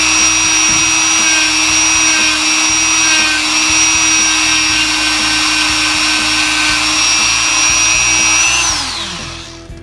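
Dremel rotary tool on a flex shaft, running at steady high speed with a felt polishing bob charged with green rouge buffing a pistol barrel's feed ramp. Near the end it is switched off and the whine falls in pitch as it spins down.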